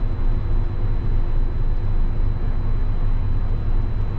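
Claas Jaguar 960 forage harvester running with its chopping drum turning for knife sharpening, heard from inside the cab as a steady low drone with a faint steady hum above it.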